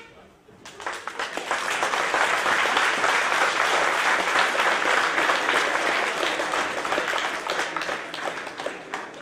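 Crowd applauding, building up about a second in and fading away near the end.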